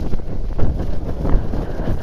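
Wind buffeting the microphone: a loud, uneven low noise that rises and falls throughout.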